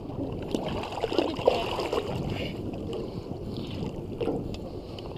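Water splashing and sloshing at the surface beside a boat around a hooked bull redfish being drawn alongside, with small irregular splashes and drips.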